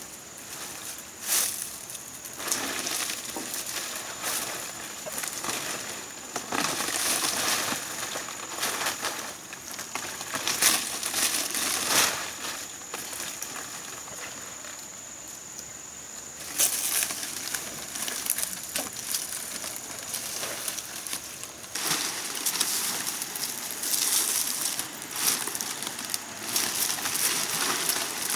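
Irregular rustling and crunching in short bursts, like dry material being handled, over a thin steady high-pitched tone.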